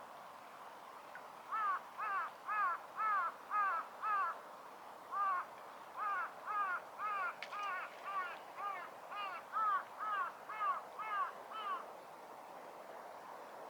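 A crow cawing in a long run of about twenty harsh caws, roughly two a second, with a short break partway through.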